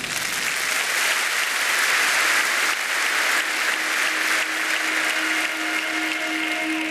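Applause from a crowd, a dense clatter of many hands clapping. A little past halfway a steady held musical note comes in underneath.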